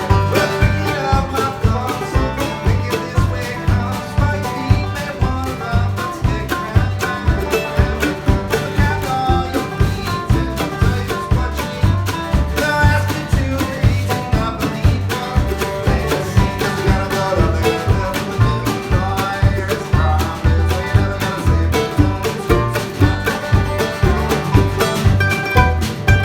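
A band playing a song, an instrumental stretch over a steady, even beat.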